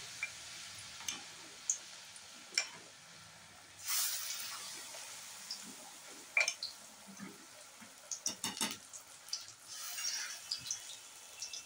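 Battered aubergine slices (beguni) deep-frying in hot oil in a wok: a steady sizzle with scattered pops and crackles. The sizzle swells about four seconds in, and a quick run of pops comes around eight seconds.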